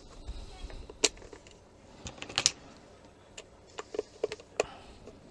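Sharp plastic clicks and taps from handling a Tenma 72-6634 LCR meter's case: a loud click about a second in, a quick cluster about two and a half seconds in, and several lighter clicks near the end.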